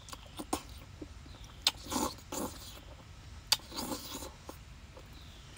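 Eating during a taste test: a few sharp clicks of a fork against the dish, with soft chewing and mouth noises between them.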